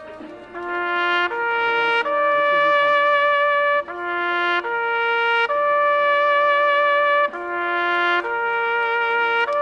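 Brass instruments playing a slow march tune in unison, one long held note after another, about nine notes in all.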